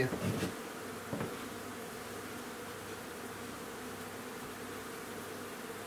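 Honeybees buzzing in a steady hum over an opened hive body full of frames, with a light knock about a second in.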